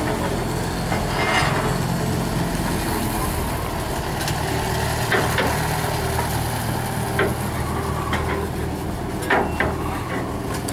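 Steady low drone of an idling engine, with a few sharp knocks: one about halfway through, one later on, and a quick pair near the end.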